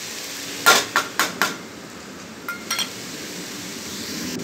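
A metal spoon clinking and tapping against a pan or spice cup as chilli powder is added: four quick knocks about a second in, then two or three lighter taps a second later. A steady hiss lies underneath.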